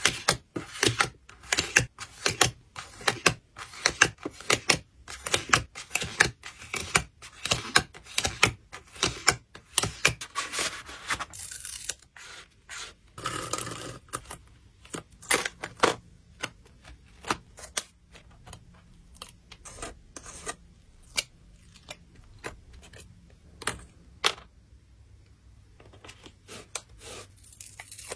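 Hands working photocard packing materials close to the microphone: a dense run of crinkles, taps and clicks, a longer tearing, rasping stretch about halfway through, then sparser single taps and clicks.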